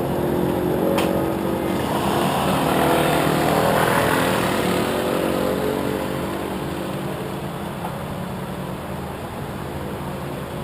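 Motorcycle engine running as the bike rides away, growing louder over the first few seconds and then easing off, with a single short knock about a second in.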